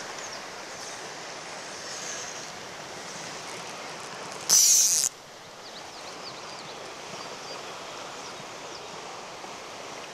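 Steady rushing of a freestone mountain stream. About four and a half seconds in, a loud, high hiss lasts about half a second and cuts off sharply.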